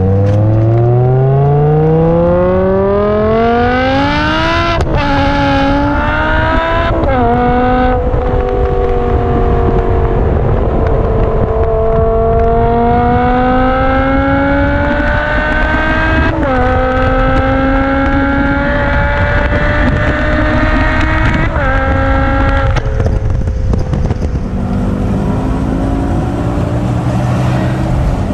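BMW M5 E60's V10 engine, heard at its quad exhaust, under hard acceleration. The revs climb steeply and drop sharply at each of about four upshifts, then settle lower and steadier near the end.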